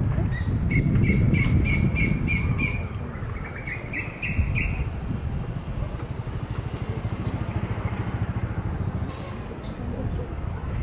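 A small bird chirping in a quick, even series of short high calls, about two a second, that stops a little before halfway through. A steady low rumble runs underneath.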